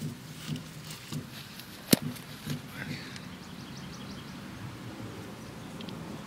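Footsteps on grass, about two a second, as someone walks up, with one sharp click just before two seconds in. After that, faint outdoor background with a few short, high chirps.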